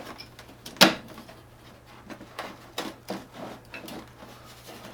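Hand tools and parts being handled during disassembly of a Toro single-stage snowblower: one sharp clack about a second in, then a few softer taps and knocks.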